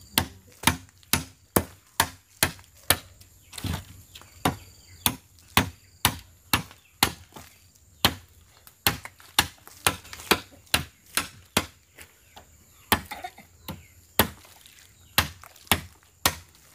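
A hand tool striking hard over and over in sharp, separate blows, about two a second, with a few short pauses around the middle and near the end.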